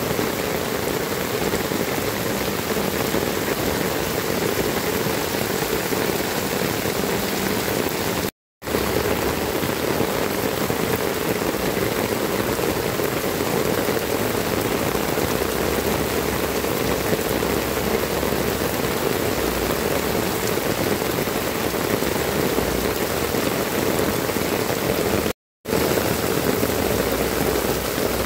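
Heavy tropical downpour falling steadily on clay tile roofs and wet ground, an even, dense hiss of rain. It drops out twice for a split moment.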